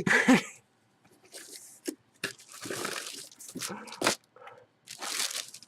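Packaging being handled and opened: irregular rustling and crinkling, with a couple of sharp clicks.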